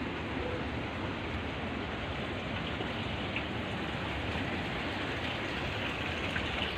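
Water running steadily in an irrigation channel, an even rushing noise with no pauses.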